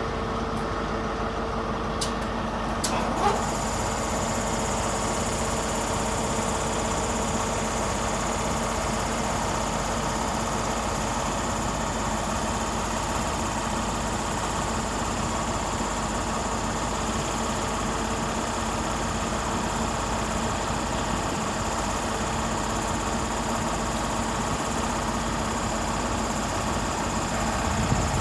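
Diesel train engine idling steadily, a low hum with held tones; a steady high whine joins about three seconds in, after a couple of short clicks.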